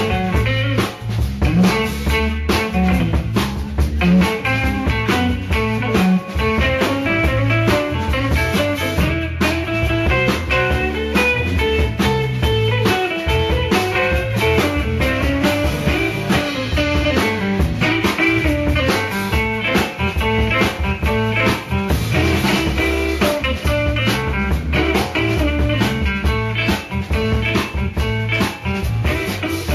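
Background music: guitar-led blues-rock with drums and a steady beat.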